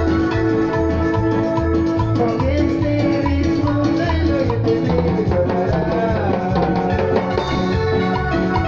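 Live chicha band music, Ecuadorian-style cumbia. A steady bass and drum beat runs under sustained chords, with a wavering melody line through the middle.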